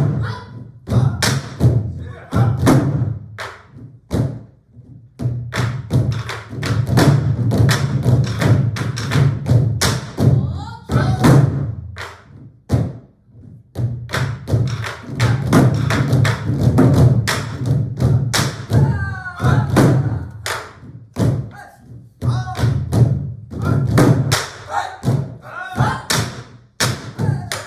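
An ensemble of Korean buk barrel drums played together: dense, rhythmic strikes with a deep drum body, broken by short pauses. A few vocal shouts come through between the patterns.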